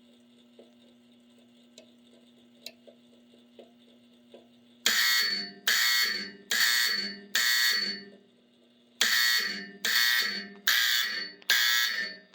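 Coded fire alarm signal from a 1965 Honeywell W247B fire alarm control panel sounding its 4-4 master code: four loud strokes, a pause, then four more, each starting suddenly and fading away. Before the code starts, about five seconds in, there is only a low steady hum with faint ticking.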